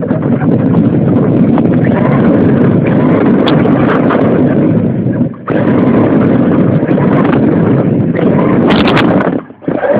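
Radio-controlled car driving, picked up by a phone riding on it: a loud, steady, rough rattle of the chassis and wheels over the ground, with wind on the microphone. The noise cuts out briefly about halfway, and again near the end just after a few sharp clacks.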